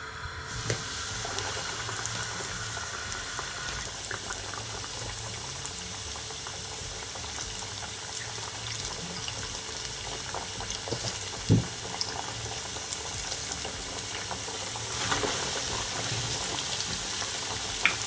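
Flour-coated fish deep-frying in hot vegetable oil in a stainless steel saucepan: a steady sizzle with fine crackling that starts as the fish goes into the oil. A single short knock about two-thirds of the way through.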